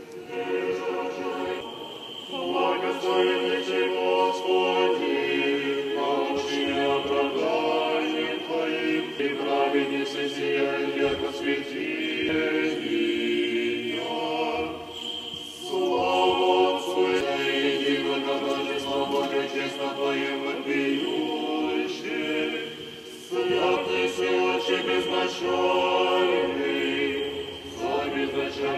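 Unaccompanied Russian Orthodox choir singing memorial-service chant in held chords, phrase after phrase with short breaks between them.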